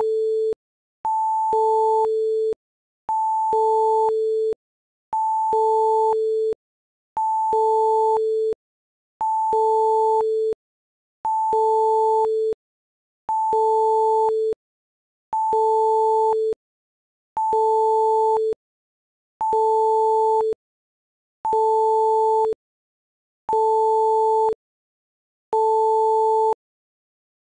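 Two electronic beeps about an octave apart, a higher one followed by a lower one that briefly overlaps it. The pair repeats evenly about every two seconds, with short silences between.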